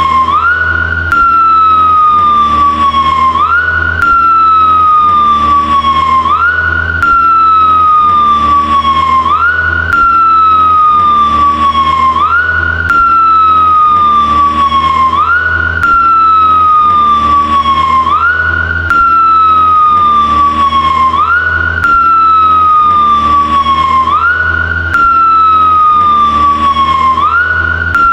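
Police motorcycle siren wailing, its pitch sliding slowly down and then snapping back up about every three seconds, over the low rumble of the motorcycle's engine. The same short stretch of sound repeats again and again.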